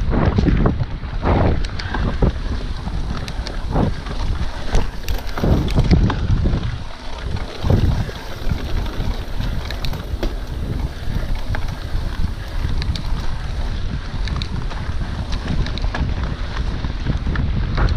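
Wind buffeting the camera microphone of a Specialized Epic Comp full-suspension mountain bike ridden fast on a dirt track, with a steady low rumble and frequent short knocks and rattles as the bike jolts over bumps.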